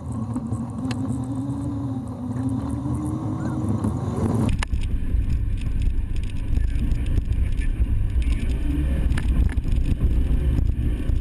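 Suzuki Samurai 4x4 engine running while the vehicle drives off-road: a steady engine drone at first, then, about four and a half seconds in, a sudden change to a heavier, deeper rumble with scattered knocks and rattles.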